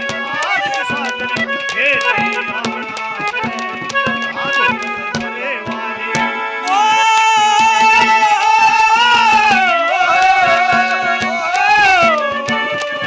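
Haryanvi ragini accompaniment: harmonium chords over quick hand-drum strokes, and about seven seconds in a long, wavering melodic line is held over them for several seconds.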